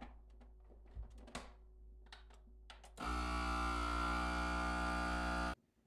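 A countertop vacuum food sealer's pump motor starts about three seconds in and runs with a steady hum, then cuts off abruptly. A few light clicks of handling come before it.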